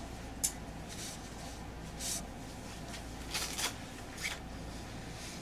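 Inside a JR Central 313 series electric train under way: a steady low rumble and hum, with a few brief rustling noises.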